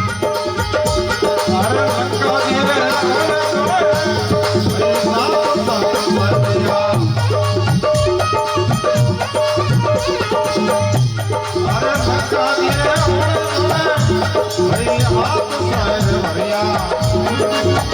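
Rajasthani folk devotional music: a bhajan with a steady percussion beat, shaker-like rattling and a sustained melodic accompaniment, with some singing.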